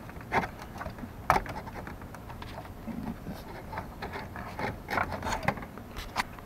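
Irregular light clicks and knocks of a plastic dashboard bezel being pushed and worked past a pulled-out headlight switch knob, with rubbing and handling noise; the sharpest click comes about a second in.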